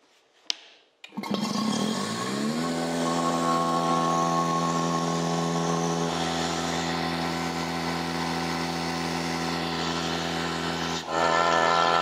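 A Fieldpiece vacuum pump is switched on with a click. Its electric motor winds up for about a second and a half and then runs steadily, circulating fresh oil to rinse out milky, water-contaminated oil. Near the end the running sound dips for a moment and then comes back louder.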